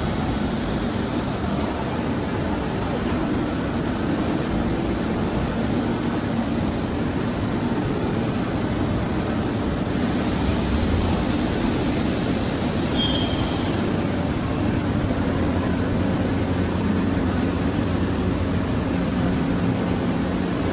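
CNC woodworking router running, a steady mechanical rumble and hiss with no let-up.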